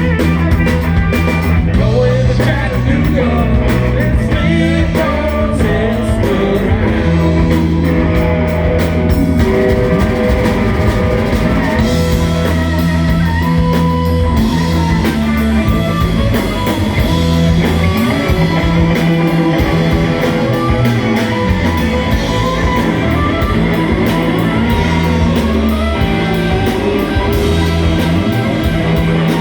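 Live rock band playing a blues-rock song: electric guitar, bass and drum kit, with singing.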